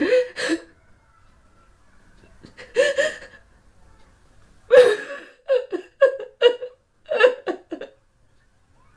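A woman crying and sobbing. A few separate drawn-out sobs come first, then a quick run of about seven short, catching sobs from about five and a half seconds in to near eight seconds.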